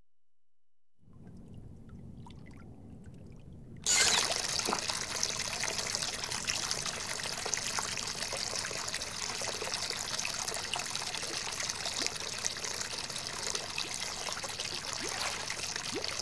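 Water trickling and pouring steadily, starting suddenly about four seconds in after a faint low hum.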